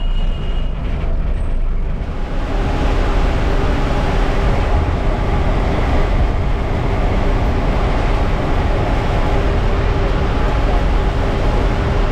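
Cabin noise of a TNSTC Ultra Deluxe diesel bus running at about 85 km/h: a steady engine drone with a whine, under road and wind noise. It grows louder about two seconds in.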